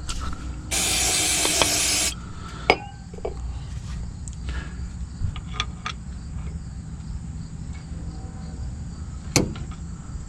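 A burst of aerosol spray about a second in, an even hiss lasting about a second and a half. After it come scattered sharp metal clinks of tools and parts at the open differential as the axle C-clip is set in place.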